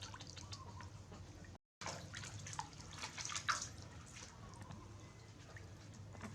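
Small drips and splashes of water in a bath, with light scattered clicks and knocks.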